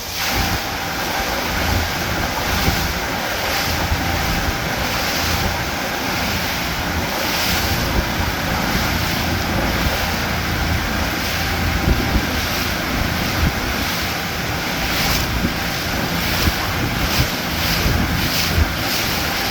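Wind buffeting the microphone over a steady rush of water, with a few short louder gusts in the second half.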